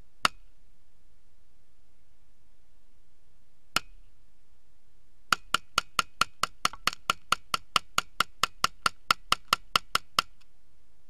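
Two single sharp wood-block-like clicks a few seconds apart, then a rapid, even run of about two dozen similar clicks, roughly five a second, lasting about five seconds.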